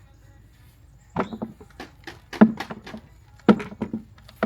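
A few knocks and thuds, in three short clusters about a second apart, the middle one loudest, as potatoes and soil are handled in a container.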